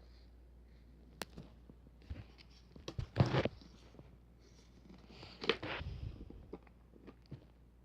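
Handling noise: irregular clicks and rustling, with two louder bursts of rustling about three and five and a half seconds in.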